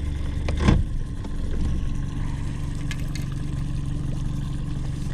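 Mercury four-stroke outboard motor running steadily at low trolling speed, with a sharp knock about a second in and a couple of light clicks later.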